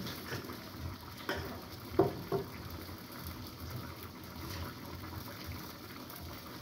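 Stew simmering in a frying pan on a gas stove, with a few sharp kitchen knocks about a second and two seconds in, the loudest near the two-second mark.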